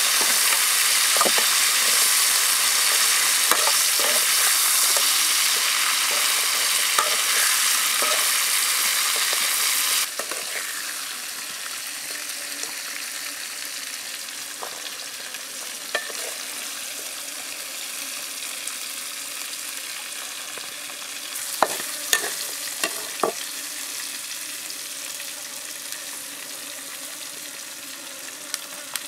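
Snake meat and vegetables sizzling as they are stir-fried in a metal wok with a spatula. A third of the way through, the sizzle drops to a quieter steady hiss, and a few sharp clacks come later.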